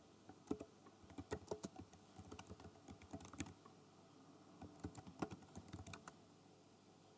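Typing on a computer keyboard: two runs of quick key clicks with a short pause between them, stopping about a second before the end.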